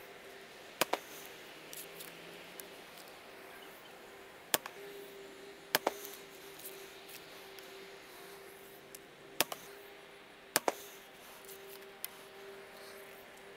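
Traditional bow being shot and handled: sharp clicks and thumps, several coming in quick pairs, from the string's release, arrows striking the foam 3D target, and arrows being drawn from the bow quiver. A faint steady hum runs underneath.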